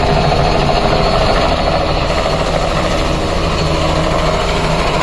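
Light two-bladed helicopter climbing away after lift-off, its rotor beat and engine loud and steady, easing a little after about two seconds.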